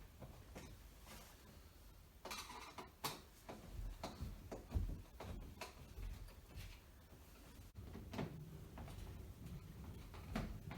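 Scattered light knocks, clicks and rustles of hand work with small screws and tools on a door frame, with no power tool running.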